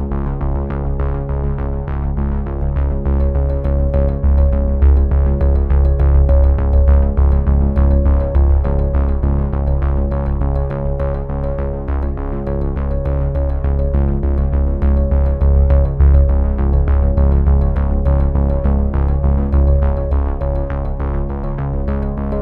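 Background music: synthesizer and keyboard with a strong bass and a steady beat.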